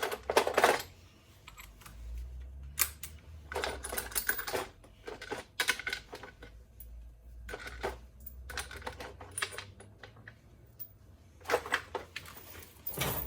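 Cordless impact gun running in several short bursts of rapid hammering rattle, running the door card bolts in part of the way.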